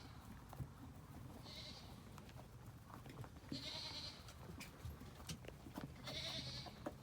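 Rabbits crunching food: faint, irregular small clicks. A bleat-like animal call comes three times, about every two and a half seconds, and is the loudest sound.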